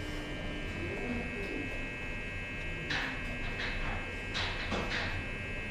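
Lift car travelling: its drive gives a steady high whine made of several tones at once, with a few faint short clicks in the second half.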